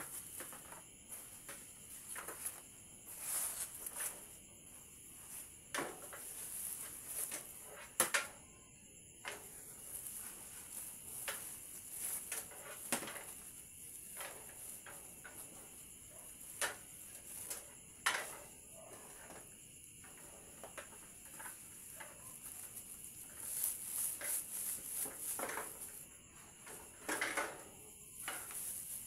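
Metal baking trays knocking and scraping against the oven's metal racks as they are moved, in scattered short clanks, some in quick clusters, over a steady high hiss.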